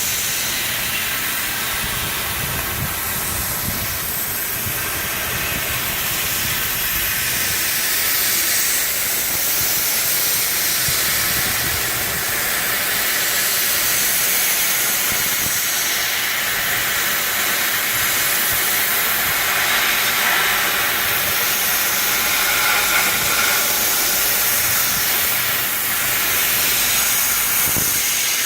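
150 W laser cutting machine at work, giving a steady, loud hiss.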